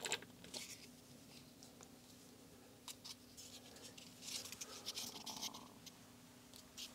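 Faint scratches and small clicks of a plastic syringe being handled and lifted out of an engine cylinder after drawing out measuring oil, busiest about four to five seconds in, over a steady low hum.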